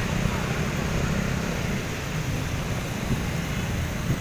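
Steady street traffic noise: vehicle engines running with a constant low rumble under a hiss of road noise.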